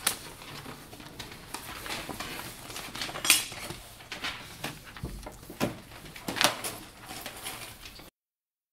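Classroom desk handling sounds: scattered clicks and clinks of pens and pencil-case items, with books and papers shuffled, as students get out their books. The loudest knocks come about three and six and a half seconds in, and the sound cuts off suddenly near the end.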